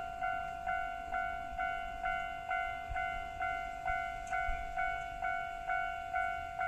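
Japanese railway level crossing warning bell ringing steadily at a little over two strikes a second, each ding fading before the next. The bell is warning that a train is approaching.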